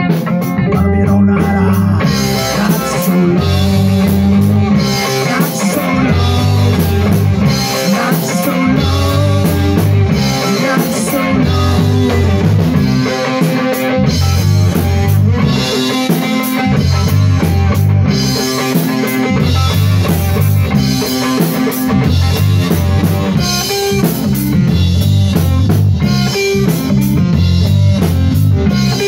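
A rock band playing live on guitar, bass and drum kit, with the cymbals and drums coming in fully about two seconds in.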